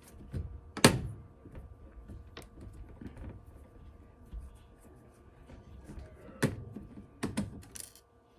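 Scattered clicks and knocks of small laptop parts and plastic being handled during disassembly, the loudest about a second in, with a few more near the end.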